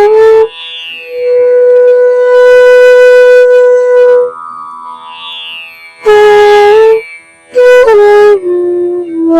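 Instrumental background music: a wind instrument playing long held notes, one held for about three seconds, then shorter phrases that step down in pitch near the end.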